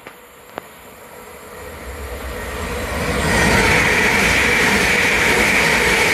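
A Heathrow Express Class 387 electric multiple unit running through at speed: the rumble and rush of wheels on rail build over about three seconds as it approaches, then hold loud and steady as the carriages pass close by. A single sharp click comes just under a second in.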